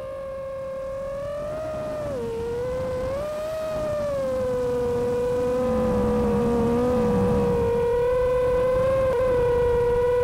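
Whine of the iFlight Chimera7 Pro FPV drone's motors and propellers, its pitch dipping and rising with the throttle about two seconds in, then holding steady. It grows louder over the first several seconds.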